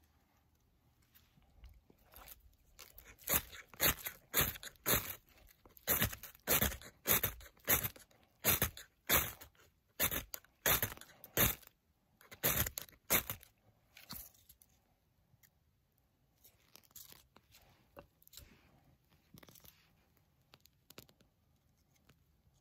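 Knife spine scraped hard down a ferrocerium rod into a pile of wood shavings: a run of quick, sharp scrapes at roughly two a second, throwing sparks to light the tinder. Fainter scattered sounds follow as the shavings catch.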